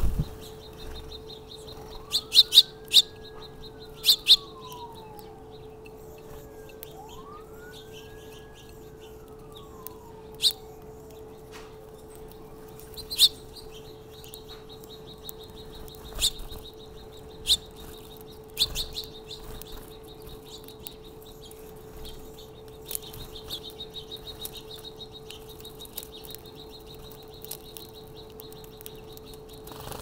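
Small feeder birds, house sparrows and house finches, giving sharp scattered chirps with a run of rapid chatter in the second half. Early on a distant siren wails twice, each wail rising quickly and falling slowly, over a steady low hum.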